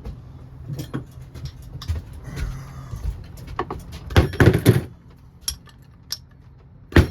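Metal tools and small engine parts clicking and clattering during hand work on an engine's top end, with a burst of louder knocks about four seconds in and another sharp knock at the end. A shop fan hums underneath and stops about five seconds in.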